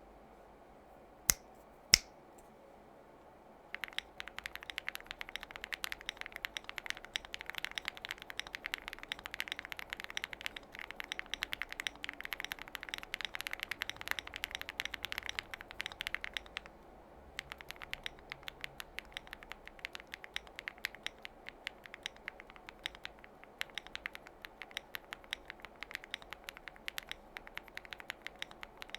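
Typing on a gasket-mounted Mammoth75 mechanical keyboard with lubed Akko Cream V3 linear switches and PBT keycaps: fast, continuous key clicks. There are two louder single clicks near the start, and the typing begins about four seconds in. It stops briefly a little past the middle, then resumes at a slightly sparser pace.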